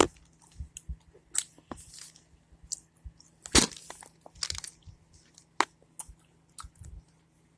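Someone chewing gumballs close to the microphone: irregular crunches and wet mouth clicks, with a louder crunch about three and a half seconds in.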